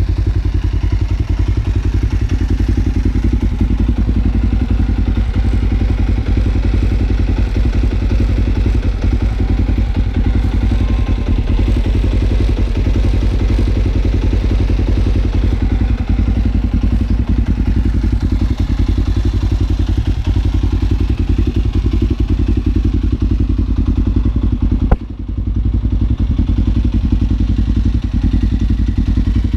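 Kawasaki KLE's parallel-twin engine idling steadily, with an even, unchanging exhaust pulse. A single sharp knock about 25 seconds in briefly drops the level.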